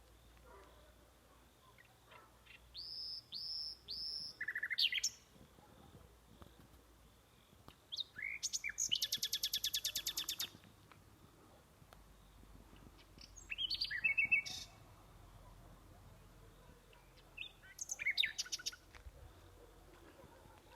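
A bird singing in four separate phrases a few seconds apart. The phrases are made of clear whistled notes, and the second holds a fast trill lasting about two seconds.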